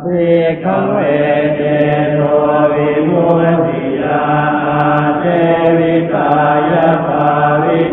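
Buddhist chanting of Pali verses in a steady monotone, the syllables held on a nearly level pitch and recited without pause.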